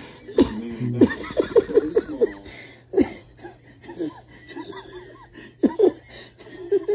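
Two men laughing in short fits, loudest in the first two seconds and again near the end.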